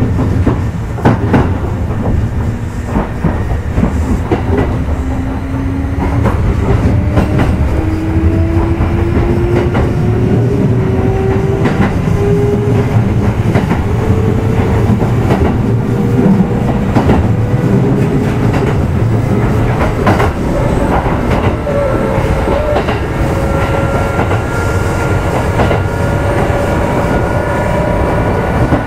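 Kintetsu 1810-series motor car running, heard from inside the car: its traction motors and gears whine, rising slowly and steadily in pitch as the train accelerates, over a steady rumble with clacks from the rail joints. The series uses resistor control.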